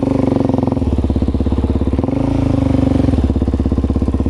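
Suzuki DR-Z400's single-cylinder four-stroke engine running at low speed while riding, with its revs shifting a little, rising briefly about two seconds in and settling again about a second later.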